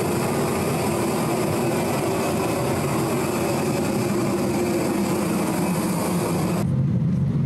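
Keisei Skyliner airport express train running: a steady rumble and rush with a constant hum. Near the end the sound changes abruptly, the high rush dropping away and a lower rumble remaining.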